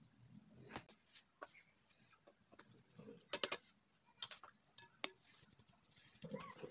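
Scattered light taps and clicks from a plastic flour sieve being tapped by hand to sift flour into a glass bowl, several close together about three to four seconds in.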